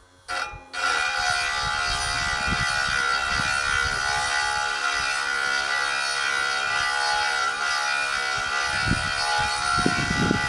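Small diamond-wheel grinder whining steadily as it grinds across the tungsten carbide tip of a Lucas Mill swing-blade saw tooth, starting about a second in.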